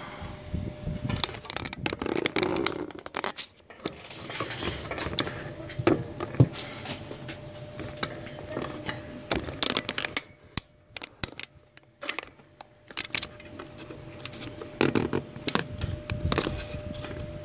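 Handling noise from a smartphone being lifted off a heated screen separator and set on a rubber work mat: irregular scrapes, clicks and taps, over a faint steady hum.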